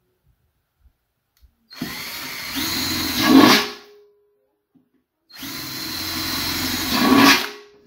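Cordless drill boring two quarter-inch holes, one after the other, through the wall of a metal turkey fryer pot. Each run lasts about two seconds and gets louder near its end before the drill stops.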